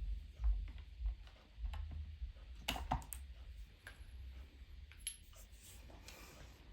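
Scattered light clicks and soft handling bumps from metal impact sockets and their case being handled, with a few sharper clicks around three seconds in and another near five seconds.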